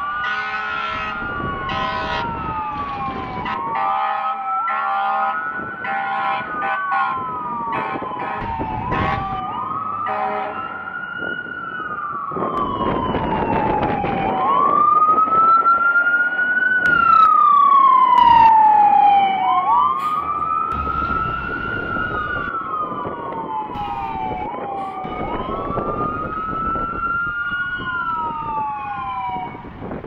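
Fire engine siren wailing, each cycle rising quickly and falling slowly about every three seconds, with air horn blasts over it during the first ten seconds. It is loudest around the middle, as the truck's engine passes close, and then fades.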